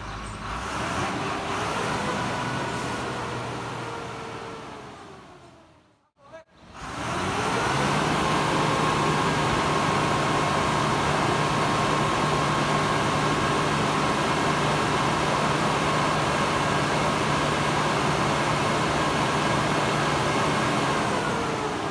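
Tipper truck's diesel engine revving up and held at high, steady revs to drive the hydraulic hoist that tips the sand body, with a whine riding over it. An earlier rev dies away to a brief silence about six seconds in, and the revs drop back shortly before the end.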